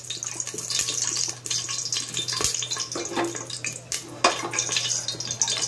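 Refined cooking oil poured into a hot, wet pressure cooker, sizzling with scattered sharp crackles and spits, and a few clinks of metal.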